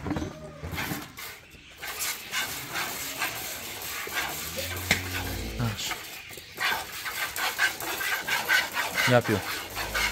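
Cow being milked by hand, milk squirting in rhythmic jets into a plastic bucket.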